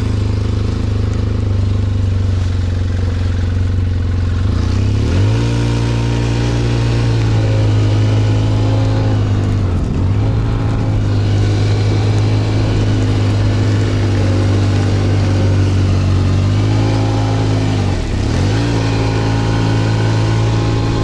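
Snowmobile engine running just after being started, with the throttle opened and eased as it drives off and turns. The pitch climbs about five seconds in and drops and picks up again near ten and eighteen seconds.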